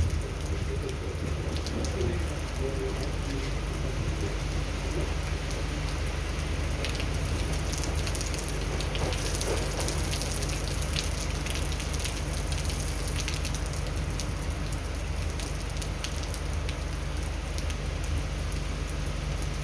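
Hurricane rain and wind: rain pattering steadily over a constant low rumble.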